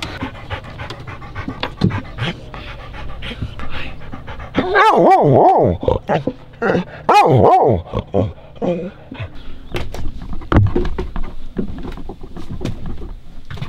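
Dog panting, then giving two long, wavering whining cries about five and seven seconds in, before panting again.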